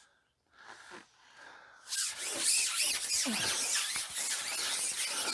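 Hands kneading and squeezing damp groundbait into a ball, a close, dry rubbing and rustling that starts about two seconds in, with a few soft knocks.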